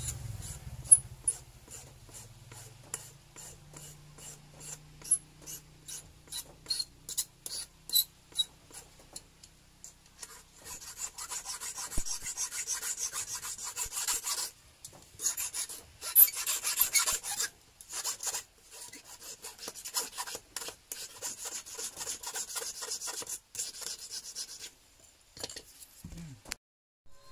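Hand file rasping on a hammer-flattened metal fishing hook, smoothing out the hammer marks along its edge. Separate strokes at first, then quick, continuous back-and-forth filing from about ten seconds in, stopping a few seconds before the end.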